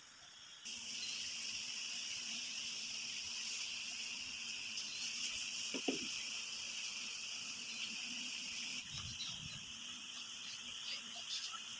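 Steady high-pitched chirring of crickets, with a brief squeak about six seconds in and a few faint ticks near the end.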